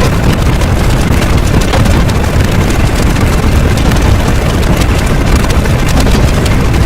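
Loud, steady wall of noise with a deep rumble underneath and frequent crackles throughout, from stacked sound effects.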